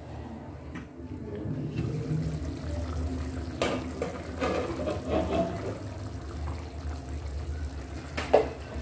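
Chicken curry simmering in a pot over medium heat, its thick sauce bubbling steadily, with a few short knocks of cookware, the sharpest near the end.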